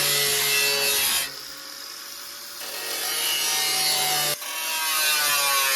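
Angle grinder working steel body panel: a steady motor whine under loud, gritty grinding with shifting metallic ringing tones. The grinding eases off about a second in and builds back up over the next couple of seconds.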